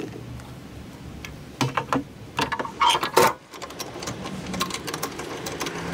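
Knocks and metallic clatter from sheet-metal panels on a Toyota forklift being handled, a handful of sharp knocks with the loudest about three seconds in, then a low steady hum.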